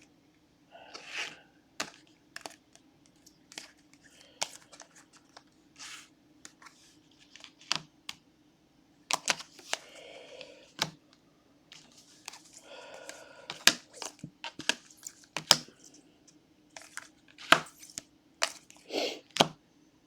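Trading cards being handled and sorted by hand: scattered taps and clicks with a few short rustles, over a faint steady low hum.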